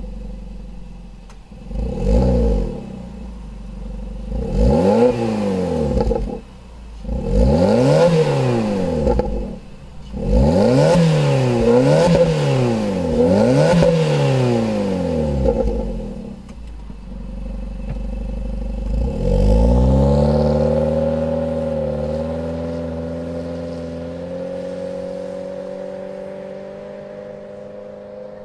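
Suzuki Ignis's 1.2-litre K12C four-cylinder engine exhaling through an HKS Silent Hi-Power aftermarket muffler. It idles, then is revved freely about six times, the last three in quick succession, and settles back to idle. Near the end it accelerates away, engine speed climbing and then holding nearly steady while the sound fades as the car moves off.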